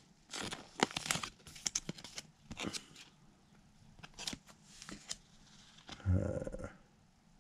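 Trading cards being flipped through by hand: a run of soft ticks and rustles as cards slide off and against each other in the stack. About six seconds in there is a short, lower sound lasting about half a second.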